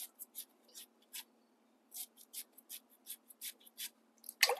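A sharp two-bladed shaving knife shaving a banana blossom into strips: short, crisp, scratchy strokes, roughly three a second at an uneven pace.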